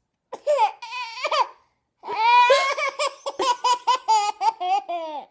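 A baby laughing: a short laugh, then a longer run of rhythmic laughter of about four pulses a second.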